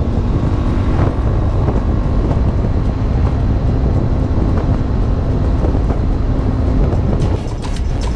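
KTM motorcycle engine running steadily while riding, with wind noise on the microphone. The level drops about seven seconds in.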